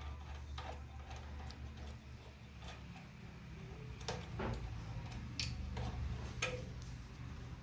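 Irregular light clicks and taps of hand work on electrical cable connections, with a few sharper knocks in the second half, over a steady low hum.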